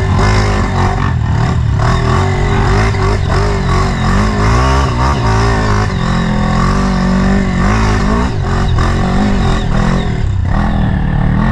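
Honda CRF four-stroke dirt bike engine running under load, heard from the rider's own bike, its pitch rising and falling as the throttle is worked up a dirt trail.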